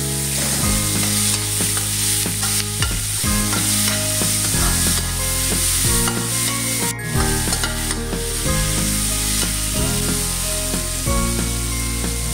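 Chopped tomatoes, onion and garlic sizzling in hot oil in a metal wok, stirred with a metal spoon that scrapes and knocks against the pan again and again.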